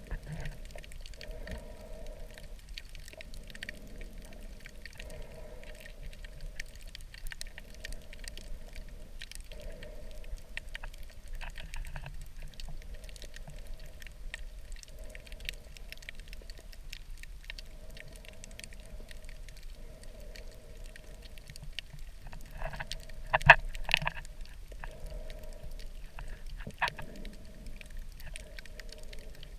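Underwater sound picked up by a camera submerged in a shallow tide pool: scattered crackling clicks over a muffled hum that swells and fades every second or two. A louder cluster of clicks comes about three-quarters of the way through.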